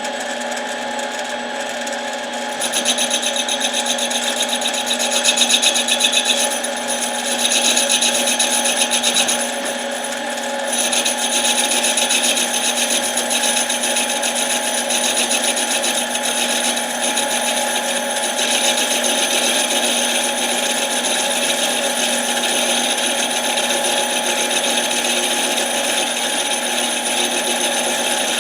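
Mini lathe running with a steady motor whine. From about two and a half seconds in, a cutting tool or abrasive scrapes against the spinning end plate of an impact wrench, with a couple of short breaks. The plate is being resurfaced because a scored end plate robs an impact wrench of power.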